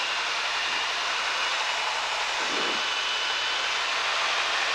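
Steady rushing hiss of a Cessna 172's cabin in flight, engine and airflow noise, with a faint high whine running through it.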